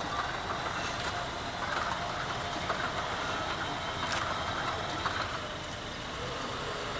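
Low background murmur of a waiting crowd of spectators, over a faint steady hum, with a few light clicks. No aircraft engine is running yet.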